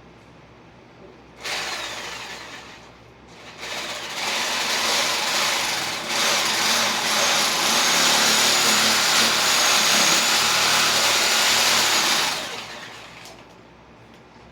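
Reciprocating saw (Sawzall) shaving wood: a short burst about a second and a half in, then a steady run of about eight seconds that stops near the end.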